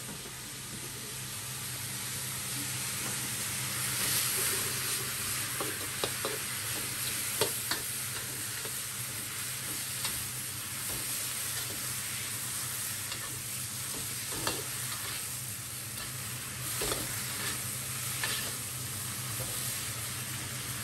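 Water spinach sizzling hard as it is stir-fried in a hot wok over a high gas flame, with a steady low hum underneath. Sharp knocks and scrapes of stirring break through now and then.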